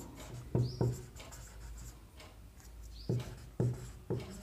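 Marker squeaking on a whiteboard in short separate strokes as a word is written, the loudest strokes about half a second in and again around three seconds in.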